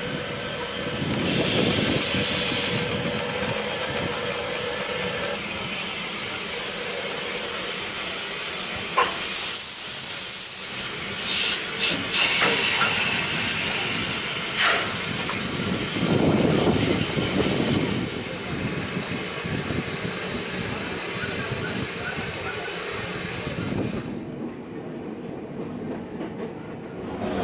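Beyer Peacock steam locomotive moving slowly through a rail yard, its steam hissing, with a few sharp knocks and clanks. About three seconds before the end the sound turns duller and steadier: the train running, heard from a carriage.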